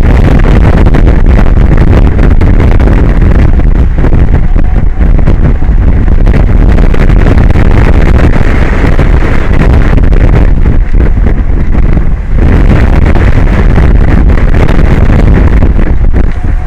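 Strong wind blowing across the microphone: a loud, steady rushing noise with no pauses.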